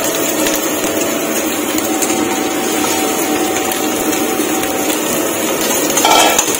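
Night jasmine flowers and onion masala frying in hot oil in a kadai: a steady sizzle.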